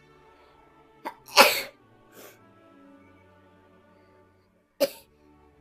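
A person sneezing loudly once about a second and a half in, the sneeze set off by tickling the inside of the nose with a twisted paper string (kouyori), with a fainter short burst soon after and another short sharp burst near the end. Background music with steady sustained tones plays underneath.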